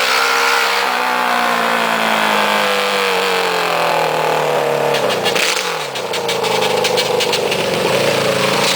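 Racing lawn tractor's Yamaha 550cc four-cylinder motorcycle engine driving by at high revs. Its pitch slides down over about five seconds, dips briefly, then climbs again as it accelerates.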